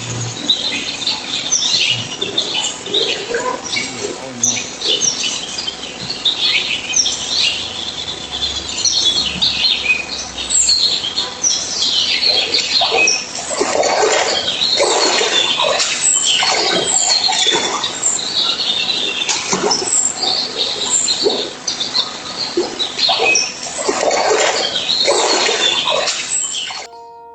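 Many high-pitched animal chirps and squeaks, overlapping, growing denser and louder about halfway through and stopping suddenly near the end.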